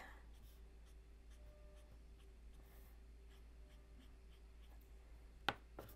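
Faint scratching of an OLO alcohol marker's brush tip making short flicking strokes on cardstock, with a single sharp click near the end.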